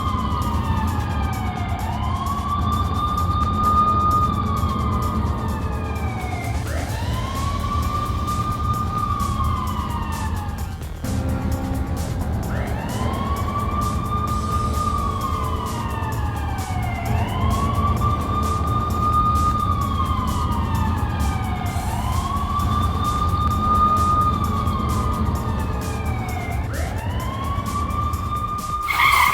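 Siren wailing, rising, holding and falling in a cycle about every three and a half seconds, over a steady low rumble. It breaks off briefly about eleven seconds in and starts again.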